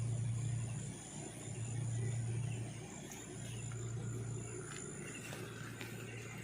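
Night forest sounds: a low droning hum that swells and fades every second or two, under a thin, steady, high insect trill that fades out about five seconds in.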